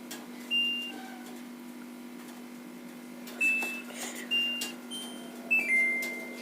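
Washing machine control panel beeping as buttons are pressed to set the programme: several short, high beeps, then a longer, slightly lower beep near the end, over a steady low hum.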